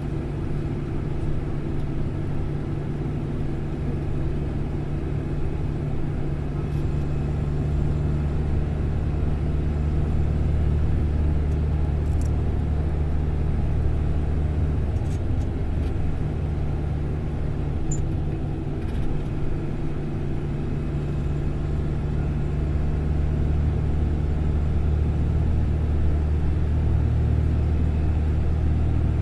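Steady low rumble of a bus's engine and tyres heard from inside the cabin while it travels at an even speed, with a few faint clicks and rattles.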